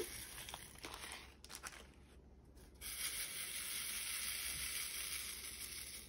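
Plastic zip bag rustling, then tiny resin diamond-painting drills rattling in a plastic drill tray as a steady, fine hiss of many small beads for about three seconds, from about three seconds in.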